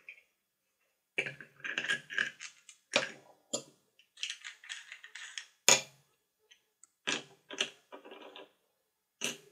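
Hard plastic parts of a wire-spool hub being handled, taken apart and set down on a board: irregular clicks, knocks and clatter, with one sharper knock a little past halfway.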